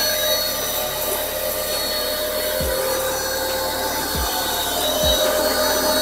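Parkside PHD 135 E5 1800 W electric pressure washer running under load, its motor and pump giving a steady high whine over the hiss of the water jet as it sprays detergent onto a car.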